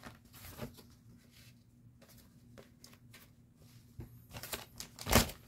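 Packaged new briefs being handled: scattered soft rustles and crinkles, growing busier near the end with one louder rustle about five seconds in, over a faint steady low hum.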